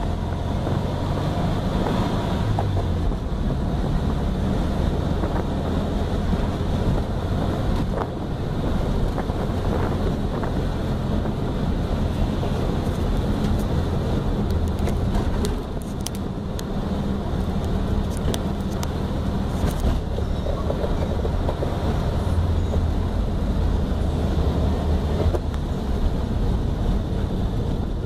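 1969 Volkswagen Beetle's air-cooled flat-four engine running steadily as the car drives, with road and wind noise.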